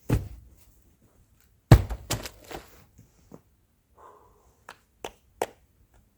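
A series of knocks and thuds, about eight in all, sharp and short, with the loudest pair close together about two seconds in and smaller taps after.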